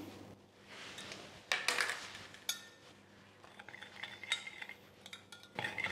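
A metal spoon stirring a thick sauce in a glass measuring jug, clinking against the glass at irregular moments.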